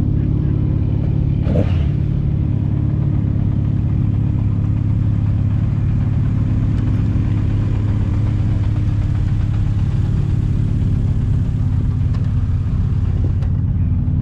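Car engine idling steadily at a constant pitch. A brief sharp sound comes about a second and a half in.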